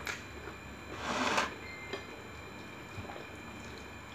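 Hands pulling apart a whole cooked chicken: soft wet tearing and squishing with a few small clicks, and a short noisy rush about a second in.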